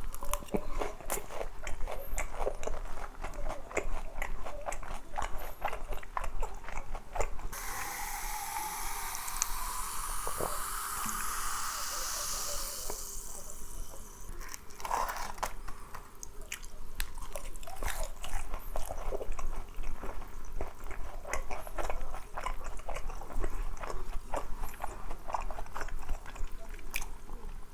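Close-miked chewing and crisp biting of boneless fried chicken in a spicy and honey glaze, with sharp crunches throughout. About a third of the way in, a rushing hiss lasts several seconds over the chewing.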